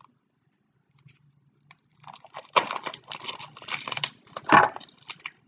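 Plastic wrapping being torn and crinkled off a sealed deck of trading cards. The crinkling starts about two seconds in, with two louder crackles, one about halfway through and one near the end.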